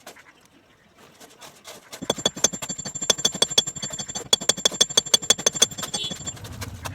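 Steel reinforcing bars clinking and rattling against each other in a rapid run of metallic clicks with a ringing tone, starting about two seconds in and stopping shortly before the end.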